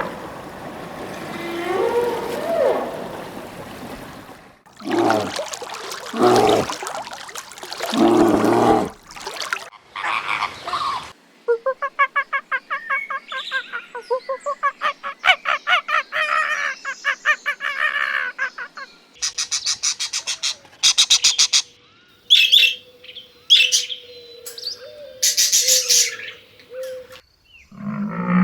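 A succession of different animal calls. First come a few loud calls that glide in pitch. Then a long run of rapid pulsed trilling calls, and near the end short high chirps and trills.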